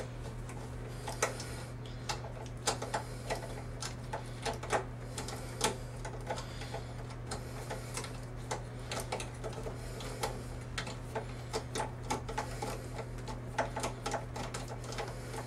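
Ratcheting driver clicking in short irregular runs as it backs out a bolt on a refrigerator condenser fan motor mount, turned counterclockwise, over a steady low hum.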